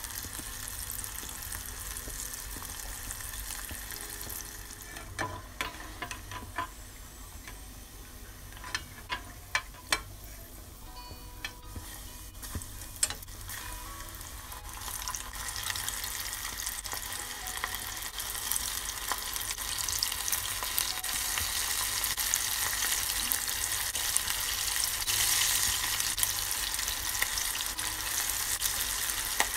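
Breaded chicken feet skin deep-frying in a pot of oil, a steady bubbling sizzle. From about 5 to 13 seconds a utensil clicks and knocks several times against the pot. In the second half the sizzle grows louder.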